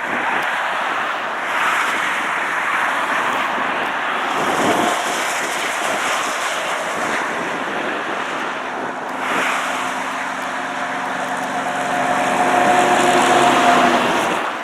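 Steady road and wind noise from a vehicle driving on a snowy highway. From about ten seconds in, an engine hum with several steady tones joins it and grows louder near the end.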